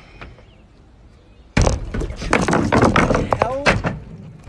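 A basketball with a beer bottle balanced on top dropped for a bounce-launch trick: a sudden loud bang about one and a half seconds in, then a run of clattering knocks mixed with excited voices.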